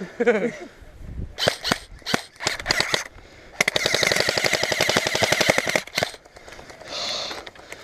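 Airsoft rifles firing: a few single shots about a second and a half in, then a long full-auto burst of about two seconds, a rapid even chatter of shots with a steady mechanical whine beneath it.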